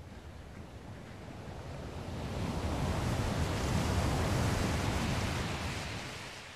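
Ocean surf: the rush of a wave swelling up over a couple of seconds, then fading away near the end.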